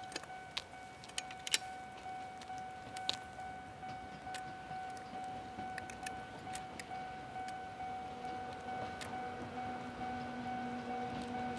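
Chichibu Railway Deki electric locomotive approaching in the distance, its low hum coming in about eight seconds in and slowly growing louder. Under it runs a steady high ringing tone, with scattered sharp ticks.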